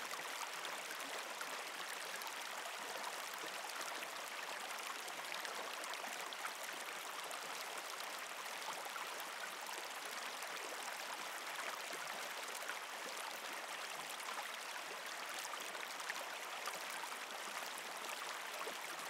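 Steady running water, like a gentle stream, at a low even level with no change.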